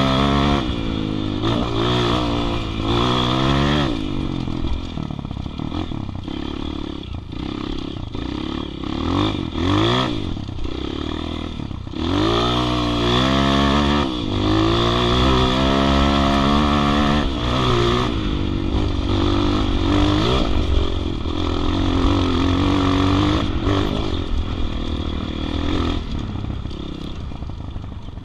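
Dirt bike's engine running under load on a trail ride, its pitch rising and falling with the throttle and gear changes, with sharp revs about a third of the way in and again just before halfway.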